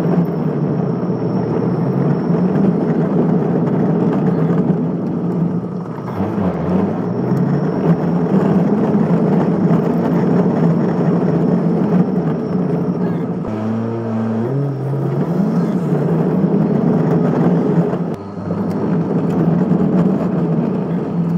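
Small car driving over a cobblestone street, heard from inside the cabin: a steady rumble of tyres on the stones under the engine, whose pitch rises and falls several times as the car changes speed.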